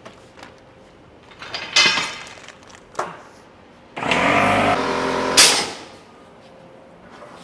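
Workshop tool and clamp noise: a metallic clang that rings briefly about two seconds in, a click, then a loud buzzing sound of about a second and a half that ends in a sharp burst of hiss.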